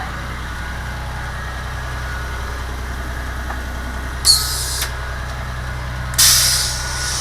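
Diesel engine of a 1999 Amtran school bus idling steadily. Two sudden hisses of air come from its air brake system, a short one about four seconds in and a longer, fading one about six seconds in.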